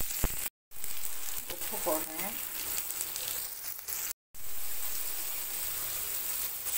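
Chopped onions, green chillies and curry leaves sizzling as they fry in oil in an aluminium kadai, a steady hiss. The sound cuts out briefly twice, about half a second in and about four seconds in.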